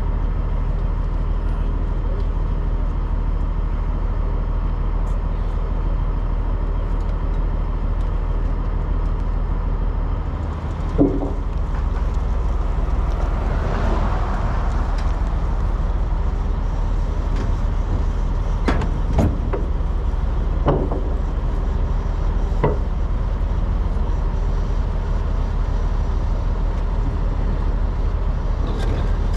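Cabover semi truck's diesel engine running steadily. Partway through, a clunk, then a brief swelling rush of noise and a few sharp knocks.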